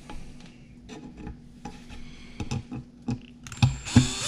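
Light clicks and clinks of small metal parts and tools being handled, then near the end a power drill spins up with a rising whine.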